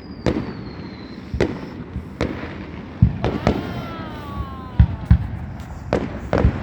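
Aerial fireworks going off in rapid succession: about ten sharp booms at irregular intervals, with a whistling tone that falls in pitch through the middle.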